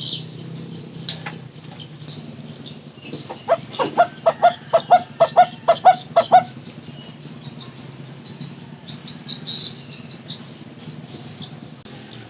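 A barbet (takur teguk-teguk) calling a run of about a dozen short repeated notes, about four a second, over steady high-pitched chirping and a low hum.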